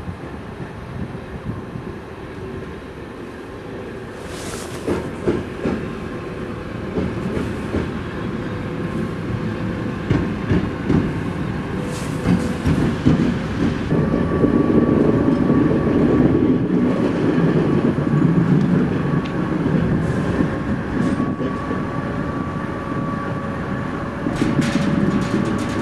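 Single section of a 2TE116 diesel locomotive running, its V16 diesel engine working as the locomotive moves over the track, with wheel clicks and clanks from the rails. It grows louder about halfway through as the locomotive comes close, with a steady engine hum.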